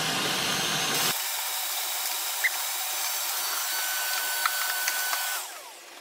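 RIDGID WD12450 12-gallon wet/dry shop vac running steadily, its hose vacuuming dust and debris off a workbench, with a few sharp ticks. It is switched off near the end and winds down.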